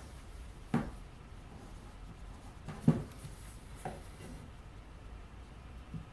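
Four light knocks and taps of a steel ruler handled against a cordless jigsaw's metal base plate on a workbench, the loudest about three seconds in, over quiet room tone.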